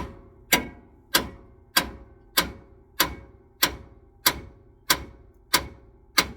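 Hammer blows on a steel pickle fork wedged between the pitman arm and drag link end, struck evenly about one and a half times a second, each with a metallic ring. The tapered joint has not let go under the fork's pressure.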